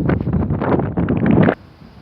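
Loud wind buffeting the microphone in uneven gusts, cutting off abruptly about one and a half seconds in.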